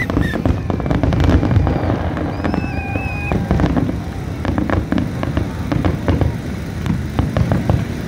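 Aerial fireworks shells bursting in quick succession: many sharp bangs and crackles over a dense low rumble, with a brief wavering whistle about three seconds in.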